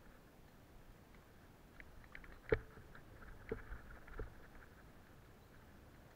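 Mountain bike jolting over tree roots on a dirt trail: a few sharp knocks, the loudest about two and a half seconds in, over faint rolling noise.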